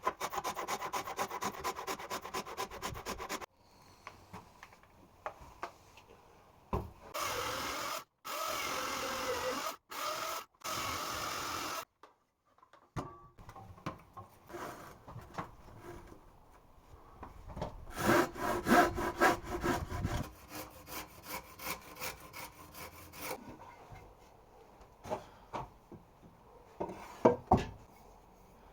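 Saw cutting through timber in several spells of rapid strokes, with scattered knocks of wood between and after.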